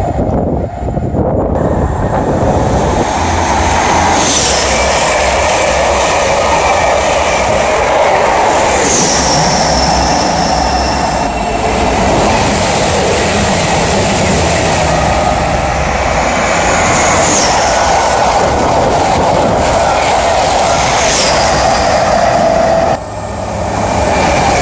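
High-speed trains passing at speed: a loud, continuous rush of wheels on rail and air, with several short high whines that fall in pitch as they go by. There is a brief drop in level about a second and a half before the end.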